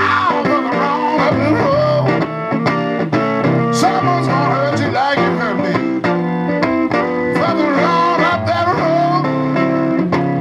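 Live blues band playing an instrumental break, a lead guitar line of bent notes over the band's steady chords.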